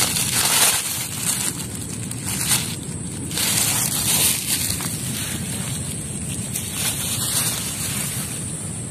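Plastic bag crinkling and rustling as it is handled, loudest in the first few seconds, over steady rustling noise on the phone's microphone.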